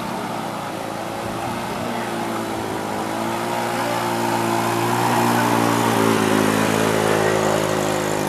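Motorcycle engine running as it rides through shallow floodwater close by, growing louder to a peak about five to six seconds in, then beginning to fade.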